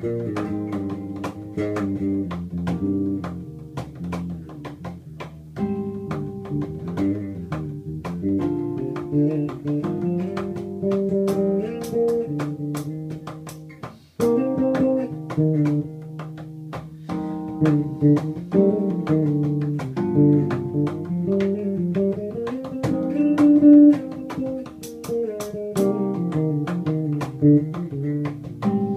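Guitar and upright bass playing a Cuban-style groove, with sharp cajon hits, and a brief break about halfway through.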